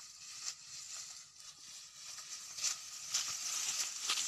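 Tall grass rustling and swishing as people push through it on foot, with light crackles of stems, getting louder as they come closer.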